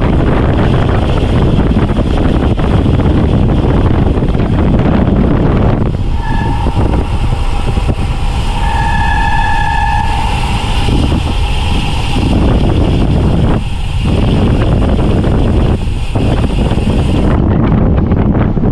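Heavy wind buffeting on the microphone of a road bike descending at speed. A high, steady squeal sounds briefly twice in the middle.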